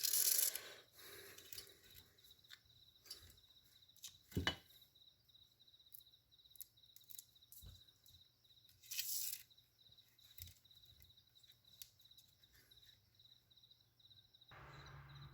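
Binding thread being drawn and tied around a submersible motor's stator winding. There are short hissing pulls of the thread near the start and about nine seconds in, with scattered light clicks and rustles between.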